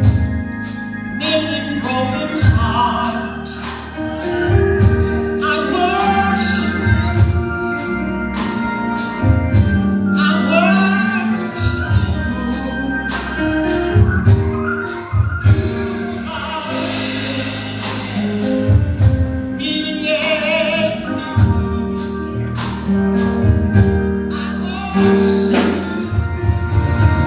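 Gospel music: voices singing, with wavering held notes, over a steady drum beat and bass.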